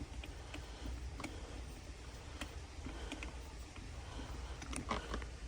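Faint scattered clicks and ticks of a shift knob being unscrewed and handled, over a low steady hum.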